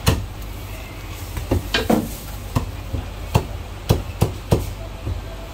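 Chinese cleaver chopping through a whole cooked chicken into a thick round wooden chopping block: about ten sharp knocks at uneven intervals, the first the loudest, with a quicker run of three a little after the middle.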